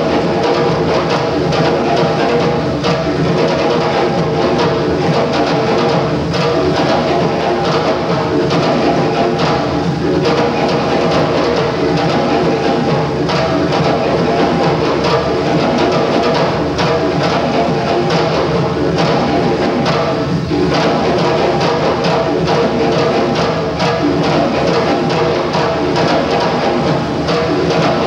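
Live hand drums playing a steady, continuous dance rhythm of close-set strikes.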